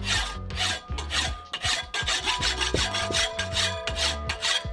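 Hand file rasping back and forth across a steel workpiece in steady strokes, about three a second, filing an edge straight.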